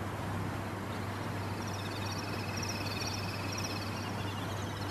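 Steady low hum and hiss, with rapid, high-pitched chirping calls coming in about a second in and repeating continuously.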